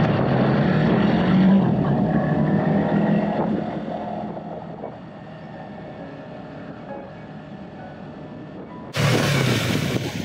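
Yamaha MT-03 motorcycle engine heard from on board, revving up under hard acceleration. A few seconds in the throttle is shut and the engine note falls away to a quieter run-down, as for an emergency stop. Near the end a sudden cut brings the bike heard from the roadside, its revs rising again.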